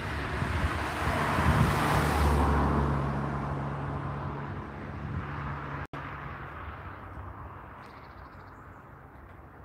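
A car passing on the road, loudest about two seconds in, then fading away over the next few seconds.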